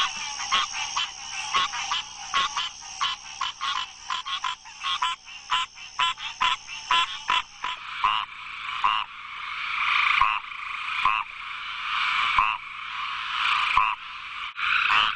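Frogs croaking: a rapid run of short croaks, about three a second, over a steady high-pitched chorus. About eight seconds in, it changes to a denser chorus that swells and breaks off every second or two.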